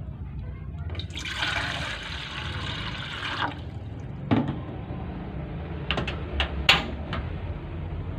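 Water boiling in an aluminium pot on a gas stove, bubbling and hissing, louder for a couple of seconds from about a second in. A few sharp clicks sound in the second half.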